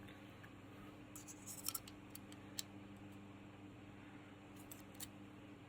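Faint, scattered light clicks and scrapes of small steel blades being handled while swapping the blade in a utility knife's quick-change holder, over a steady low electrical hum.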